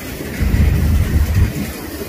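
Freight train cars, a boxcar followed by tank cars, rolling past on the track with a low rumble that swells about half a second in and eases off near the end.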